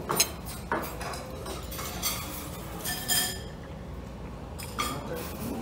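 A spoon clinking and scraping against a plate of tomato-egg fried rice, with several sharp clinks and one short ringing clink about three seconds in.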